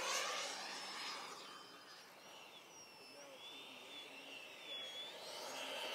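Electric ducted-fan whine of an XFly T-7A Red Hawk 64mm EDF foam RC jet in flight. It fades away over the first second or two, leaves only a faint wavering high whine in the middle, then swells again near the end as the jet comes back in low.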